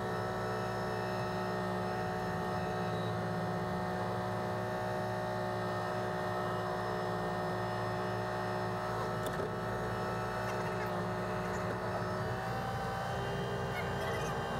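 Tractor engine running steadily, heard from inside the closed cab as a continuous hum with a low rumble. Its note shifts slightly near the end.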